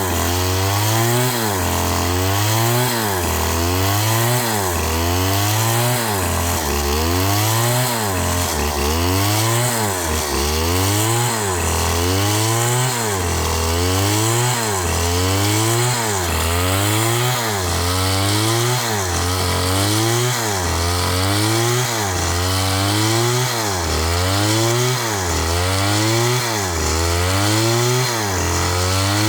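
Chainsaw engine running, its pitch rising and falling in an even, repeating cycle a little more than once a second.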